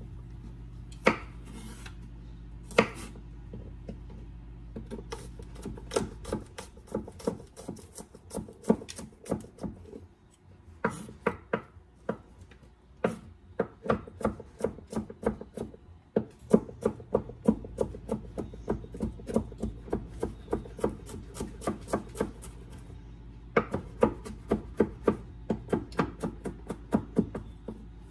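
Kitchen knife chopping garlic on a wooden cutting board: two single knocks, then quick runs of taps, several a second, broken by short pauses as the garlic is diced.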